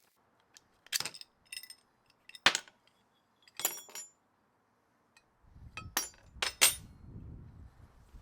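Metal parts clinking and knocking as they are handled: about seven separate sharp strikes with a bright ring, two in quick succession near the end, over a low rumble in the second half.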